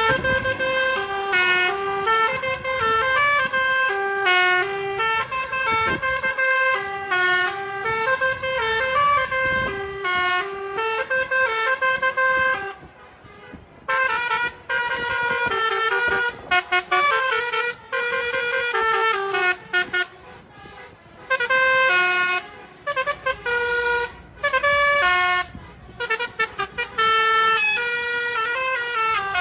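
Telolet basuri musical bus horn playing a tune, its notes stepping up and down a few times a second, with brief pauses about halfway through and again a few seconds later.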